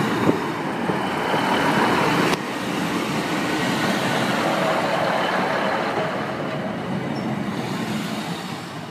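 Class 156 Super Sprinter diesel multiple unit passing close by over a level crossing: underfloor diesel engine and wheels on the rails, a steady rumble that fades as the rear of the train goes by near the end.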